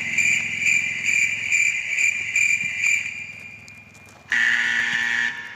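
Two comic sound-effect clips: a high electronic-sounding beeping tone that pulses about twice a second and fades out, then after a short gap a harsh, buzzy one-second blare.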